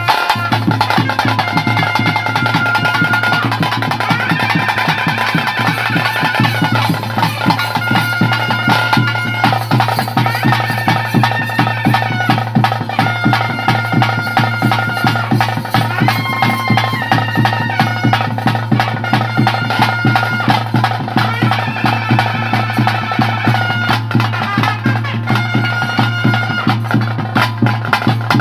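Bhuta kola ritual music: a shehnai-like reed pipe plays a melody of long held notes over a steady low drone, with fast, dense drumming throughout.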